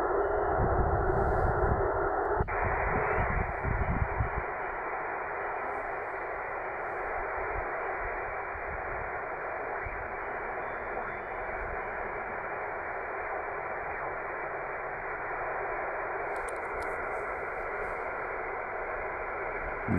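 Yaesu FT-450D HF transceiver hissing with shortwave band noise in single-sideband mode, the static squeezed into a narrow telephone-like band. Propagation is very poor and no clear station stands out. About two seconds in the hiss turns slightly brighter. A low rumble lies under it for the first few seconds, then the whole sound settles a little quieter.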